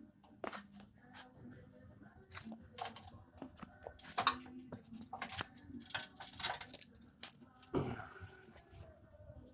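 Irregular small clicks, clinks and rattles as a car's wiring harness and its retaining clips are handled and worked loose from the radiator support.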